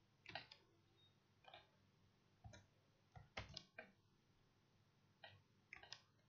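Faint computer keyboard keystrokes: scattered single taps, with a quick cluster of keypresses about three and a half seconds in.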